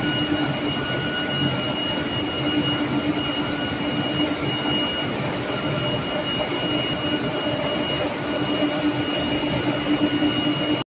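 Steel long-bar induction heat-treatment line running: a steady industrial drone with a constant high-pitched whine and a lower hum, cutting off abruptly at the end.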